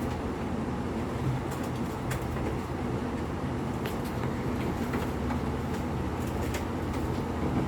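Engine of a Polaris utility vehicle running steadily at idle, a low even hum.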